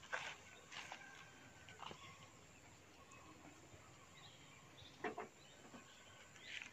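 Near silence, broken by a few faint, short chirps and clicks.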